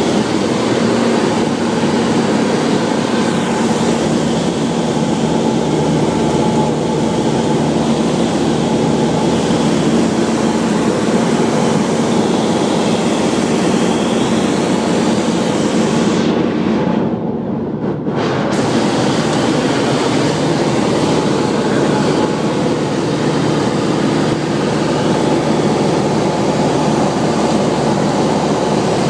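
Cabin noise in a Grumman Tiger light aircraft in cruise: the steady drone of its four-cylinder Lycoming engine and propeller, with rushing airflow. Past the middle, the sound goes briefly muffled for about a second.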